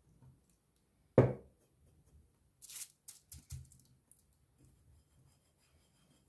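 Hands working with craft materials on a tabletop while oil paint is worked onto a glass bottle: a sharp knock about a second in, then a short scrape and a few light taps and rubs.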